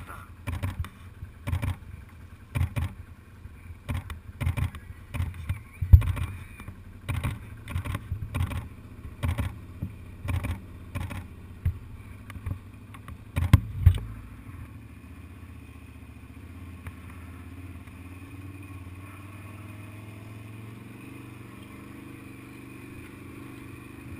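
A run of sharp knocks and thumps, roughly two a second, for about the first fourteen seconds. After that, the small off-road vehicle carrying the camera runs with a steady low engine drone as it crosses a stubble field.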